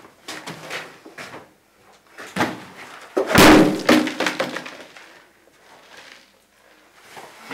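A few light knocks, then one loud crashing slam about three seconds in that dies away over about a second.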